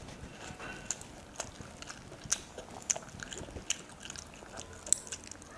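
Wet chewing and lip-smacking of someone eating curry and rice by hand: an irregular scatter of sharp mouth clicks, the loudest about two and a half and five seconds in.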